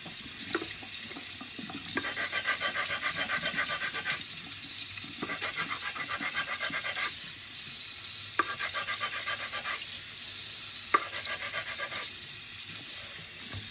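Stone grinding on stone: quick back-and-forth rasping strokes along the edge of a sharpening water stone to bevel off chips, in four bursts of about seven strokes a second. A tap runs steadily into the sink underneath.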